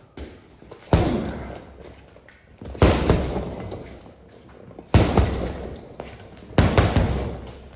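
Heavy punching bag hung on chains being struck hard four times, about two seconds apart, each impact trailing off over about a second as the bag swings.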